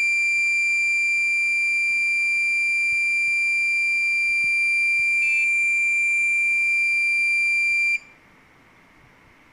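A high-pitched electronic alarm tone, held steady without pulsing, cuts off suddenly about eight seconds in.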